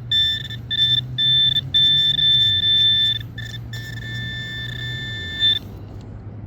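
Metal-detecting pinpointer sounding a high electronic tone over a metal target, first in short beeps and then held almost steady for a second or more at a time. It stops shortly before the end.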